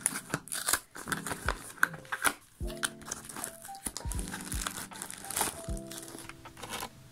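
A clear plastic bag crinkling and cardboard box flaps rustling as a wrapped item is lifted out of a small box, in many short sharp rustles, over background music with held notes.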